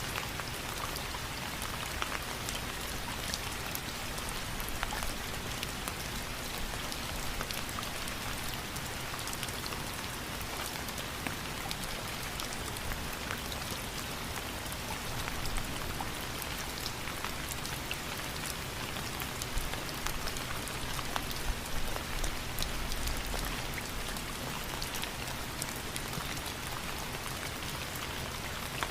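Steady rain falling on a surface, with many individual drops striking sharply and distinctly over an even hiss.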